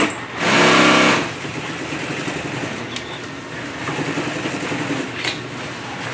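Industrial sewing machine stitching nylon fabric and webbing: a loud, steady run lasting under a second about half a second in, then a quieter steady running sound for the rest.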